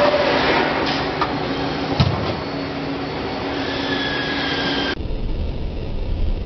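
Nakamura-Tome CNC lathe running with a steady whir and hum, with a single sharp knock about two seconds in as the tool meets the workpiece in an excess-load test. About five seconds in the sound cuts abruptly to a lower, duller hum.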